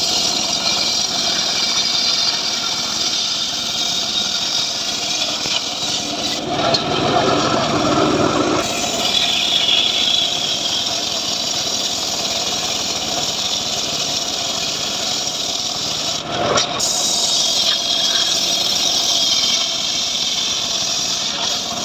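Engine of a homemade srekel sawmill running steadily, with a louder stretch lasting a couple of seconds about a third of the way in.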